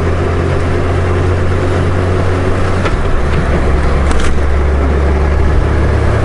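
Honda Gold Wing GL1500's flat-six engine running at road speed under a steady rush of wind and road noise; the low engine note drops in pitch about three seconds in.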